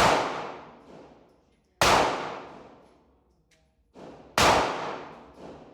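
Gunshots at a shooting range: three sharp shots, one right at the start, one just under two seconds in and one a little over four seconds in, each trailing off over about a second.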